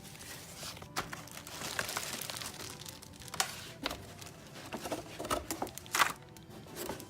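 Keyboard packaging being handled during unboxing: irregular rustling and crinkling with scattered clicks and knocks, the sharpest about six seconds in.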